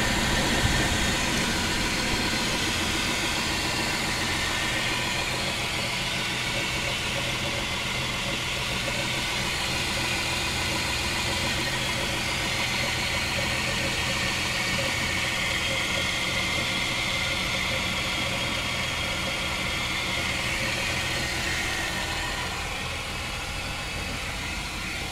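Chrysler 300M's 3.5-litre V6 engine running steadily with a knocking noise.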